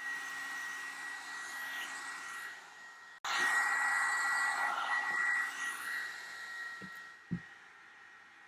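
Revlon One-Step hair dryer brush running on its cool setting: a steady rush of air with a high whine. It breaks off abruptly about three seconds in, comes back louder, then dies away near the end with a couple of soft knocks.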